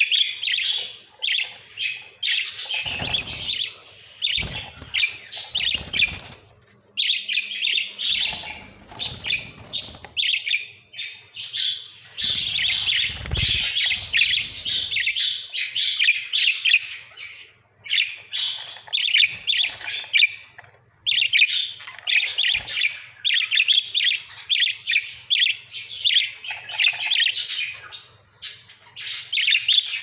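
Budgerigars chattering, a fast, high twittering of many short chirps that runs on with only brief pauses. A few low rumbles come through in the first half.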